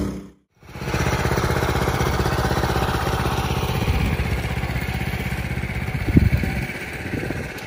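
Small go-kart engine running with a rapid, even firing beat, growing fainter over the last couple of seconds, with one brief louder burst about six seconds in.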